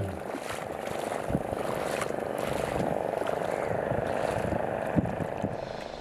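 Small fishing boat's motor running steadily with a buzzing drone, with a few short knocks, the sharpest about five seconds in.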